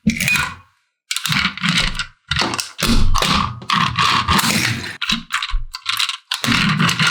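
Hard plastic toy parts and packaging being handled: a busy run of clicks, clatter and scraping, broken by a few brief silent gaps.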